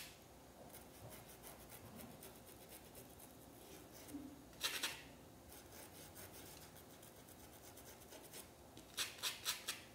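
Small flat paintbrush scraping paint onto dish-towel fabric along a stencil edge: faint dry scratchy strokes, with a louder stroke about halfway and a quick run of four strokes near the end.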